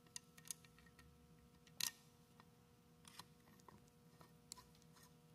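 Faint, scattered small clicks and light metallic taps from a mounting bolt and a small flathead screwdriver being worked by hand into a gearbox mounting plate, with one sharper click about two seconds in, over a faint steady hum.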